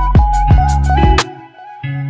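Intro music with a heavy beat and held notes, cutting off a little over a second in; a short held note follows near the end.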